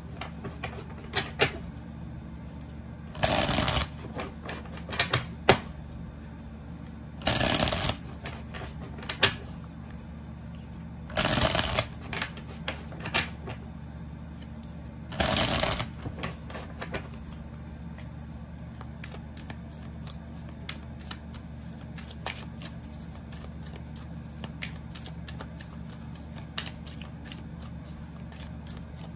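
A tarot deck being shuffled by hand. There are four loud riffle shuffles about four seconds apart, each under a second long. After that comes a long run of quieter, quick card ticks.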